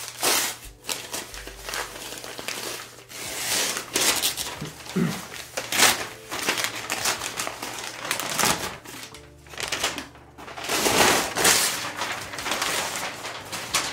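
Cardboard poster packaging being torn open and handled: irregular bursts of tearing, rustling and crinkling.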